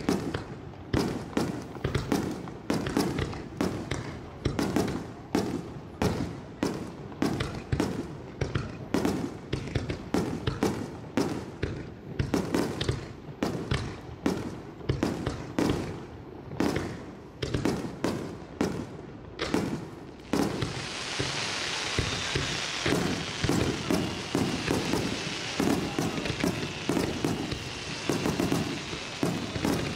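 Fireworks shells bursting in rapid succession, roughly one to two bangs a second. About two-thirds of the way through, a steady hiss sets in under the bangs and continues with them.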